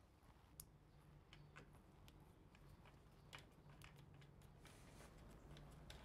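Near silence with faint, scattered clicks of a hand screwdriver turning the screws that fasten a wall-mounted light switch, over a low steady room hum.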